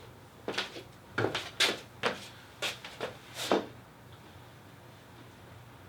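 A quick run of about seven short knocks and rustles of handling noise, ending about three and a half seconds in; after that only a low steady room hum.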